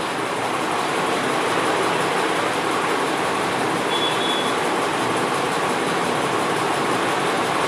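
Masala paste of tomato and onion frying in hot oil in a kadai, a steady sizzling hiss.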